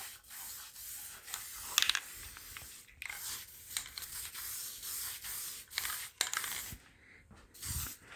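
Aerosol spray paint can spraying in a series of short hissing bursts with brief pauses between them, with a sharp click about two seconds in.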